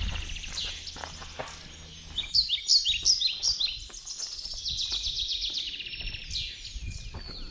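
Songbirds singing, with many short, quick chirps and trills overlapping. A low rumble runs under them for the first couple of seconds.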